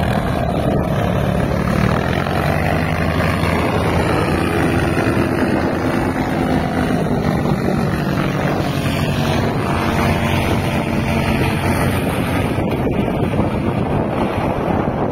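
Tandem paratrike's engine and propeller running under power on take-off, passing close by and then climbing away, its note sliding lower as it goes past. Wind buffets the microphone throughout.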